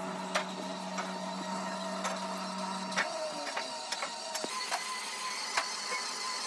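A steady mechanical hum that cuts off abruptly about three seconds in, over a constant hiss, with scattered light clicks and knocks throughout.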